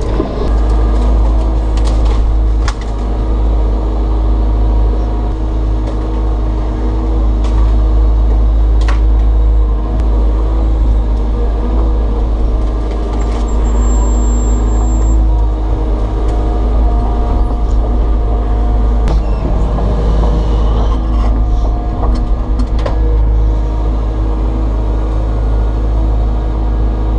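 Takeuchi TB290 excavator's diesel engine running steadily under working load, with its pitch shifting about two-thirds of the way through and a few sharp cracks now and then.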